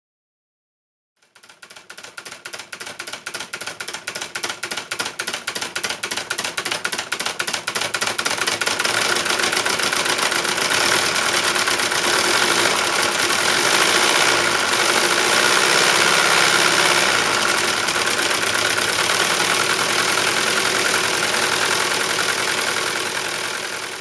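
Homemade V8 solenoid engine running: its eight electromagnet solenoids clatter as they drive the crankshaft. It starts about a second in as a string of separate clicks that speed up and grow louder, turning into a fast, steady clatter by about eight seconds in.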